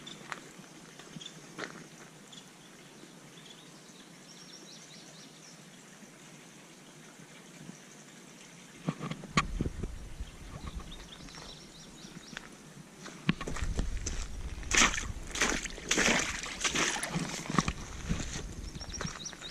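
A hiker's footsteps on a dirt trail. They are faint through the first half, then crunch louder and more often over a low rumble from about nine seconds in, busiest in the last six seconds.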